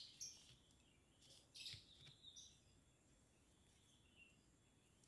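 Near silence, with a few faint, brief rustles in the first couple of seconds from a steel crochet hook working polyester yarn.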